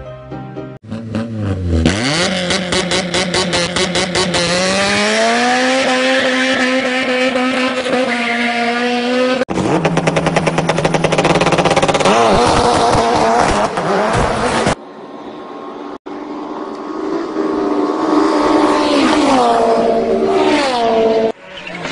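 Car engines revving, the pitch climbing in long sweeps, in several short clips joined by abrupt cuts.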